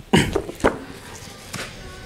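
Two short knocks about half a second apart, the first the louder, as a book and a whiteboard marker are handled at a whiteboard.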